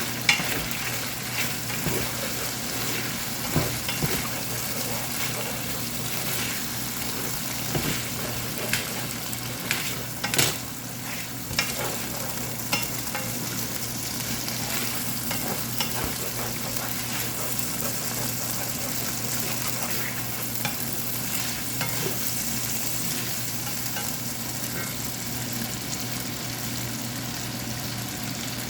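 Shrimp and fish cakes sizzling in hot oil as they are stir-fried, with a utensil knocking and scraping against the pan. The sharper knocks come during the first dozen seconds, followed by steadier sizzling.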